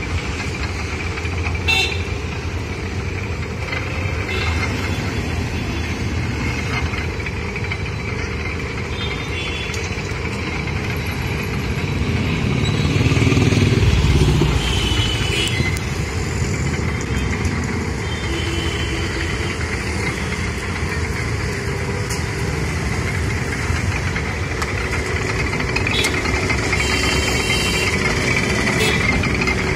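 Motor-driven sugarcane juice crusher running steadily as cane is fed through its rollers, louder for a couple of seconds about halfway through, with street traffic behind it.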